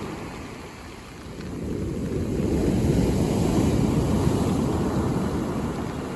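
Sea waves breaking on a beach: the surf dips briefly, then a wave swells in from about a second and a half, peaks mid-way and washes out, fading near the end, with a low rumble under the hiss.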